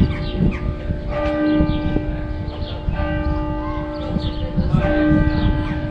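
Church bells ringing, a new strike roughly every second, each note ringing on under the next.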